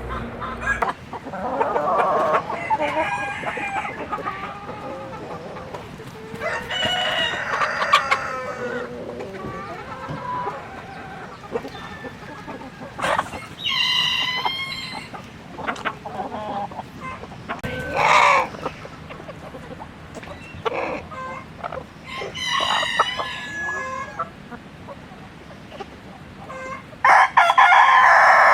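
Chickens: roosters crowing again and again, about six calls a few seconds apart with the loudest near the end, and hens clucking between them.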